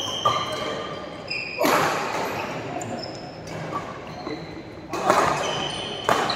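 Badminton play on an indoor court: shoes squeaking on the court floor in short high squeaks, and racket hits on the shuttlecock echoing in the large hall.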